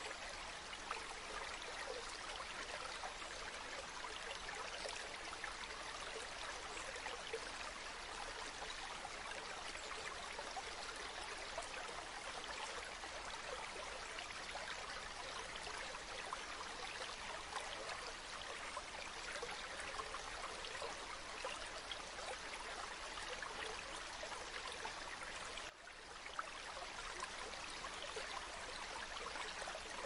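A stream running steadily, its water making a constant fine babble, with a momentary drop in level about three-quarters of the way through.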